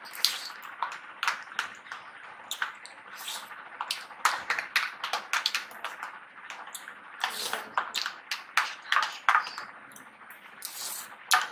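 Metal spoons clicking and scraping in plastic tubs of hard-frozen ice cream, many quick irregular taps as two people eat.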